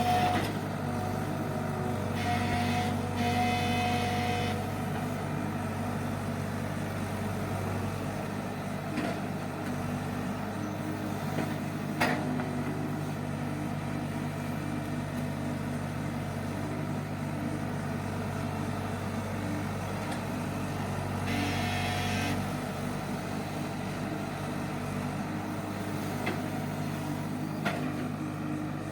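Bulldozer's diesel engine running steadily. Two short high-pitched sounds rise above it, one a couple of seconds in and one about 21 seconds in, and a single sharp knock comes about 12 seconds in.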